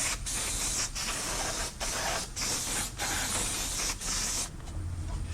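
Aerosol can of carburetor cleaner spraying in a run of short hissing bursts, which stop about four and a half seconds in.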